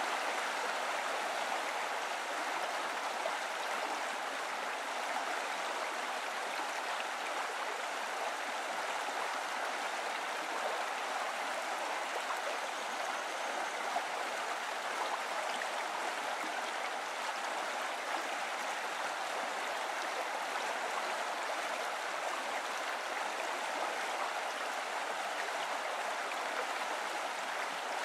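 Steady rush of a flowing mountain stream: an even hiss of running water that does not change.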